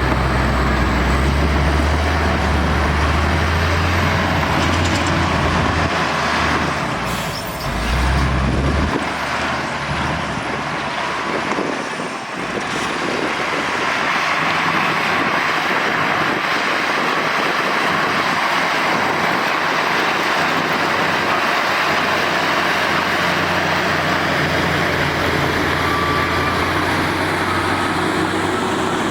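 Heavy diesel earthmoving machinery at work: a deep engine rumble that drops away about nine seconds in, leaving a steady loud mechanical noise.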